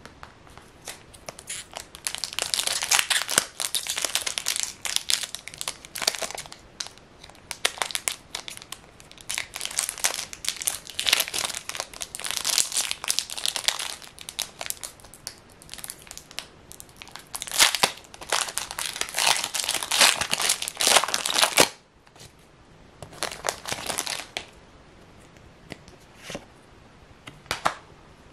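Foil wrapper of a Pokémon TCG booster pack being torn open and crinkled in the hands, in repeated bursts for about twenty seconds. Near the end come softer, scattered rustles and clicks as the cards are handled.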